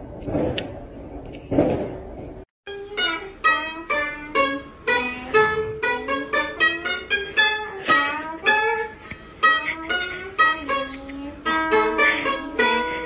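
A few noisy rustling thumps, then after a brief break a lively run of quick plucked-string notes, like guitar or mandolin music.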